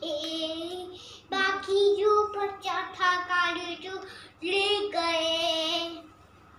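A young boy singing a song solo, in several held, melodic phrases with short breaks between them; the singing trails off about six seconds in.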